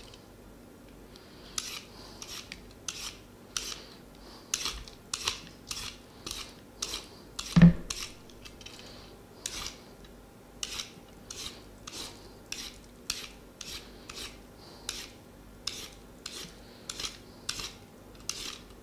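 A carrot being peeled: a blade scraping off the skin in short, repeated strokes, roughly two a second. A single loud thump comes about eight seconds in.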